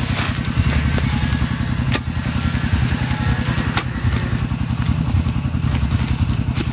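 Small engine running steadily with a fast, even beat. Two sharp clicks, about two and four seconds in.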